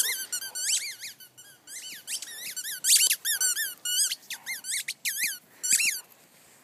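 Sled dog puppies squeaking in play: quick runs of short, high-pitched squeaks, several at a time, with brief pauses between the runs.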